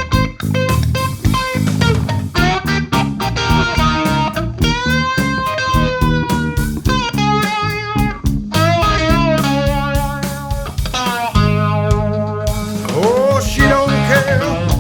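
Instrumental break of a country-rock song: a guitar lead line with bent notes over bass guitar and drums.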